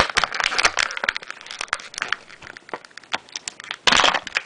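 Clear plastic packaging crinkling and crackling as it is handled, with a louder burst of rustling near the end.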